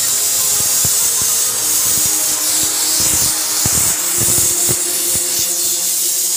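Aluminium pressure cooker whistling: steam jets out past the weight in a loud, steady hiss, with an irregular low rattle underneath. Each whistle marks pressure reached, and two of them mean the dal sambar inside is cooked.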